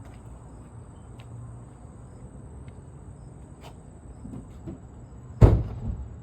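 One heavy metallic thump about five and a half seconds in, with a short rumble after it. Under it runs a steady low hum and a faint, steady high insect drone.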